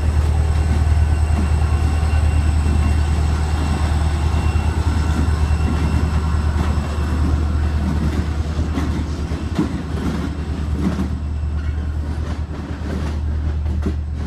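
CSX diesel-electric locomotives passing close by, their engines giving a steady low drone. In the second half the wheels click over rail joints.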